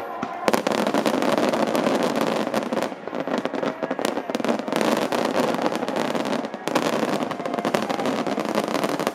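Large aerial fireworks display: many shells bursting in rapid succession, a dense, continuous mass of booms and crackling that begins about half a second in.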